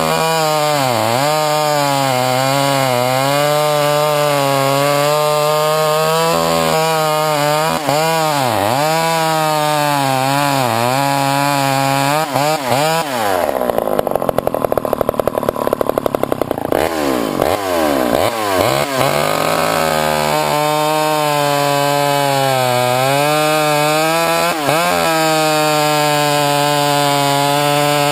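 Poulan two-stroke chainsaw running at high revs, its pitch sagging and recovering again and again. About halfway through it drops to a rough, low idle for a few seconds, then is revved back up in a few blips to full speed.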